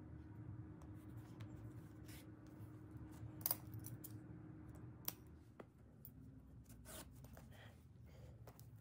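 Quiet handwork sounds of a needle and wool yarn being drawn through the edge of a Gabbeh rug during an edge repair, with a few sharp clicks, the loudest about three and a half seconds in, over a steady low hum.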